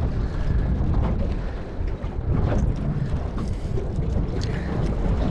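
Wind buffeting the microphone on a small fishing boat at sea: a heavy, steady low rumble, with a few light knocks scattered through it.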